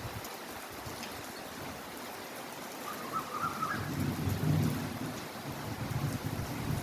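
Heavy rain falling steadily, with a low rumble building about four seconds in.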